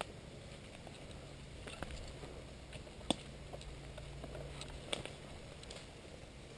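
Footsteps and crackling in woodland leaf litter, with a few sharp snaps, the loudest about 3 s in and just before 5 s, over a faint low hum.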